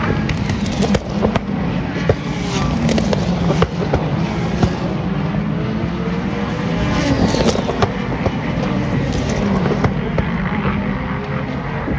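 A pack of race cars, sports prototypes and GT cars, driving through a corner, engines running loud and shifting in pitch as they pass, with many sharp exhaust pops and crackles throughout.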